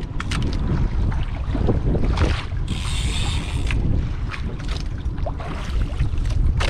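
Wind buffeting the microphone over water slapping against a small outrigger boat's hull and float, with scattered knocks and a short hissing rush of water about three seconds in.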